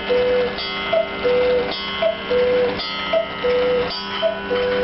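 Quail cuckoo clock sounding the hour: its bellows pipes give the two-note cuckoo call, a short high note then a longer lower one, about once a second. Each call comes with a brief ringing metallic strike.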